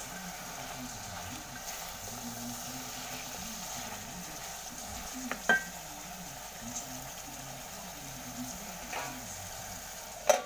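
Beef and tomato stew sizzling in an aluminium pot while it is stirred with a long spoon. Two sharp knocks stand out, one about halfway through and one near the end.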